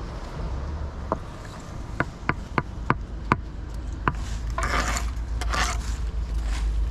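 Hand tools knocking and scraping on brick and mortar during chimney masonry work. It starts with a run of about seven sharp knocks over a few seconds, then two short scrapes, over a steady low rumble.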